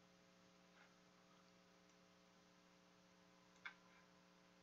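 Near silence: a faint steady electrical hum, with one faint click about three and a half seconds in.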